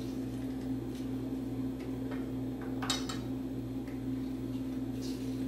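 Limes being squeezed in a plastic hand squeezer over a stainless steel bowl: a few faint clicks and one sharper click about three seconds in, over a steady low hum.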